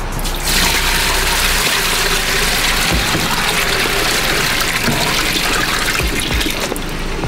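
Cold tap water running hard into a plastic tub of boiled crayfish and spilling over into a stainless steel sink, rinsing them to stop the cooking. The rushing sets in about half a second in and dies down near the end.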